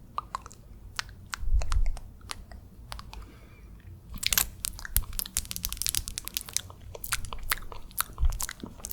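Close-miked wet mouth sounds: quick lip smacks and tongue clicks, sparse at first and then a dense run of clicks from about four seconds in. A low thump sounds near the start.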